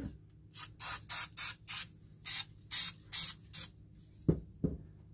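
Aerosol can of 3M Super 77 spray adhesive hissing in about ten short bursts as it is sprayed onto the back of sandpaper. Two soft knocks follow near the end.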